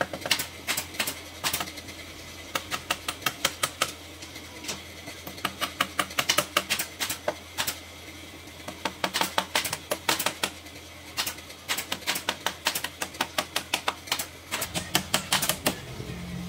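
Rapid, irregular clicking and tapping in bursts of several quick strokes, with short pauses between bursts.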